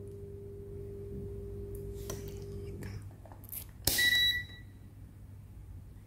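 A MESTEK DM91A digital multimeter's rotary selector clicking a few times as it is turned to the capacitance range, then one short electronic beep from the meter about four seconds in. A faint steady hum sits underneath in the first three seconds.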